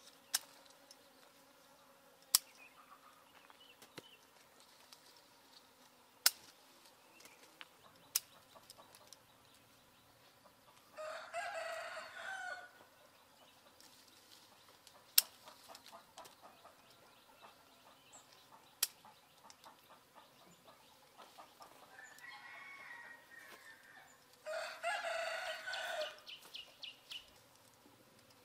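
A rooster crows twice, once about halfway through and again near the end. Sharp, single snips of pruning shears cutting citrus stems sound several times, each one brief and louder than the crowing.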